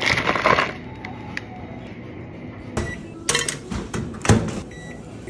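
A plastic bag of frozen dumplings torn open with a short crinkly rip at the start. From about halfway in comes a run of sharp clicks and knocks from a microwave oven's door being opened and shut, the loudest near the end.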